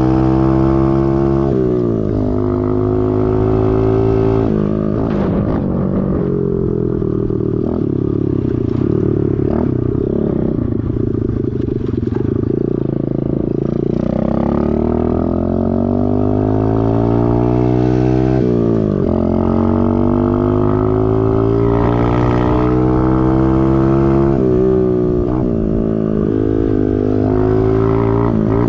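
Chinese pit bike's small single-cylinder engine running under load on a ride, its pitch climbing as it revs and then dropping sharply at each gear change, about five times. It pulls cleanly with its new carburettor and air filter fitted.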